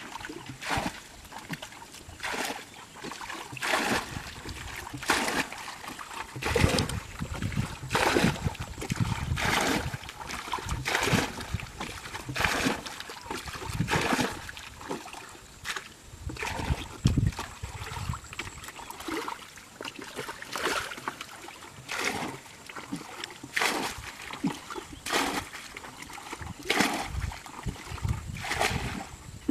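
Muddy water being bailed out of a shallow pool with a plastic bucket: the bucket scoops and the water is flung out, in repeated sloshing splashes about one every second and a half.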